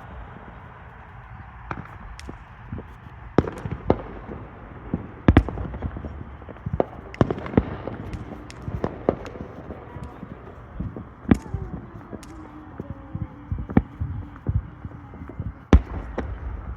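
Fireworks going off: a string of sharp bangs and crackles at irregular intervals, the loudest about five seconds in and again near the end.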